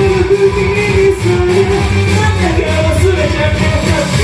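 Karaoke backing track playing with a man singing into the microphone with no echo, holding a long, slightly wavering note through most of it.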